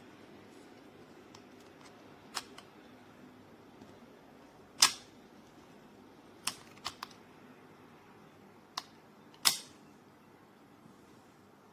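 A handful of sharp clicks and taps, about seven in all, the two loudest about five seconds in and near the end, over faint steady background hiss.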